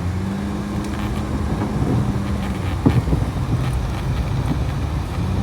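Car engine running with a steady hum and road rumble, heard from inside the moving car, with a single sharp knock about three seconds in.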